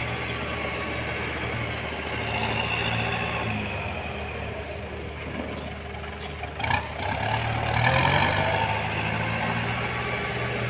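Kubota M9540 tractor's diesel engine running as the tractor drives around. A brief knock comes a little past the middle, and soon after the engine note rises and grows louder as it speeds up.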